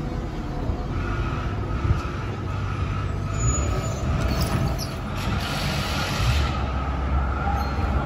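Melbourne trams moving through a stop: a steady low rumble of wheels on rails and running gear with a faint whine. Patches of hissing come about halfway through.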